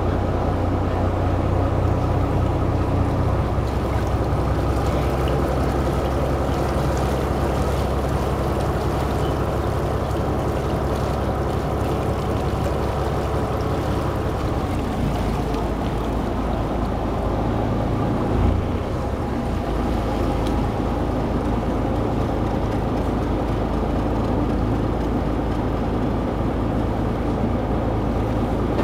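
A motorboat's engine running steadily underway. Its note shifts slightly a few seconds in and again about halfway, and there is a single brief knock a little past halfway.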